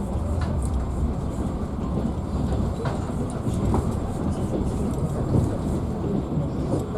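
Passenger train rolling along the track, a steady low rumble of wheels on rails with a few scattered knocks from the wheels over rail joints.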